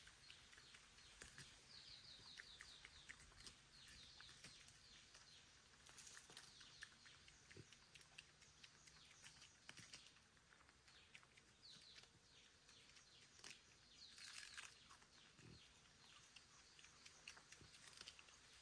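Faint crackling and rustling of dry bamboo leaf litter and bamboo-shoot husk as a piglet noses about on the ground and a bamboo shoot is peeled by hand, with a few brief runs of high chirps.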